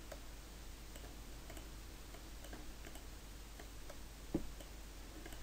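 Faint computer-mouse clicks, several scattered and irregular, with one louder click about four seconds in, over a low steady hum.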